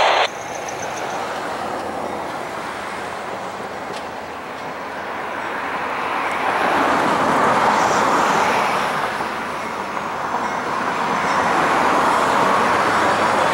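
Road traffic noise, a steady rush of passing vehicles that swells about seven seconds in and again near the end.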